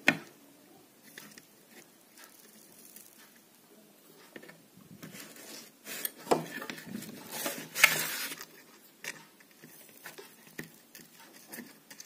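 Light handling noises of soldering a wire onto a small speaker driver's terminal: a sharp click right at the start, then scattered soft taps and scrapes, with a louder rustling, scraping stretch about six to eight seconds in.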